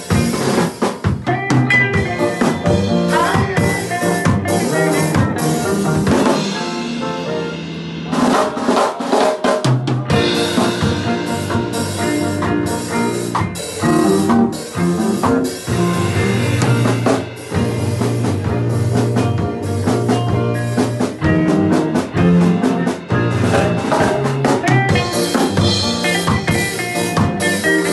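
Live reggae band jamming: a drum kit played with sticks, with snare hits, rimshots and cymbals, over bass and keyboard. The bass drops out for a few seconds about six seconds in, then the full band comes back in around ten seconds.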